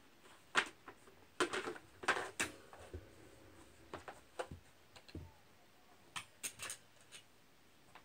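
Plastic birdcage base and tray clattering and knocking as they are handled and fitted together: irregular clicks and knocks, busiest in the first three seconds and sparser after.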